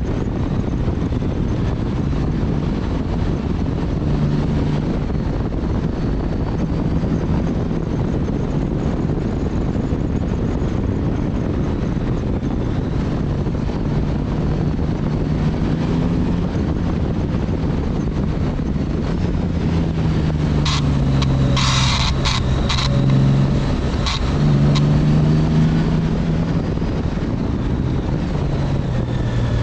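Motorcycle engine running under way with wind rushing over the microphone, its pitch rising and falling as the rider speeds up and eases off through bends. About two thirds of the way through comes a brief cluster of harsh, hissing bursts.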